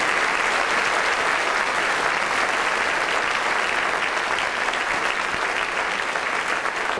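Theatre audience applauding, a steady dense clapping that eases slightly near the end.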